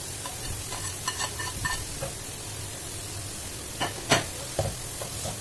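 Cauliflower fried rice sizzling in a white-coated wok while a plastic spatula stirs it and scrapes scrambled egg off a plate into the pan, with scattered clicks and knocks of spatula on plate and pan. The sharpest knock comes about four seconds in.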